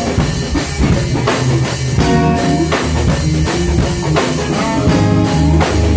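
Live band playing: electric guitar over drums, loud and continuous.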